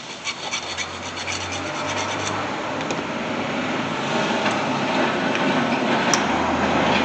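Hand file rasping on metal without a break, opening up brake-pad holes that fit too tight over the caliper's powder-coated arms.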